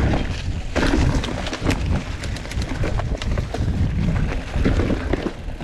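Mountain bike riding down a dirt trail: wind noise on the microphone, with many short clicks and rattles from the bike over the ground.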